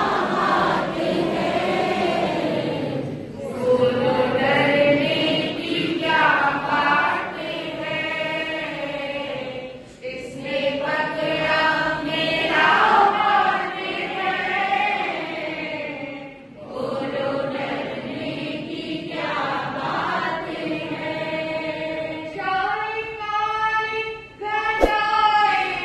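Women's voices singing a Jain devotional bhajan, in long melodic phrases broken by short pauses.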